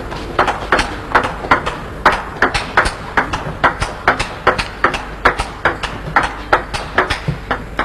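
Table tennis ball clicking back and forth off the bats and table in a long rally, about three to four sharp clicks a second.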